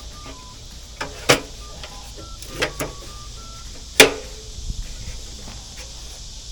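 A board and old sawhorses being handled: a few sharp knocks and clunks of wood, the loudest about four seconds in.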